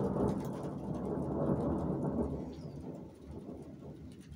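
Rolling thunder: a deep rumble, loudest for the first two seconds or so, then fading away, over light rain.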